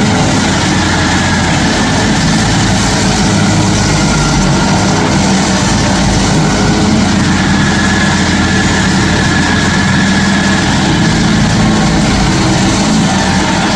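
Stump grinder running steadily and loudly, its engine holding an even speed.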